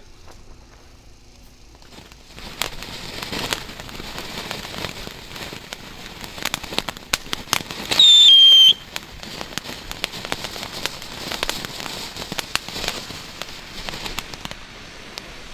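Weco Pyrosinfonie firework battery burning as a ground fountain, hissing with many crackling pops from about two seconds in. About eight seconds in comes one loud whistle, falling slightly in pitch and lasting under a second.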